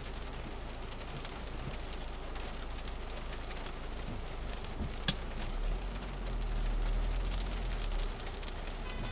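Heavy rain pattering on a car's roof and windscreen, heard from inside the cabin, with one sharp click about five seconds in. A low engine rumble swells in the second half as traffic moves off.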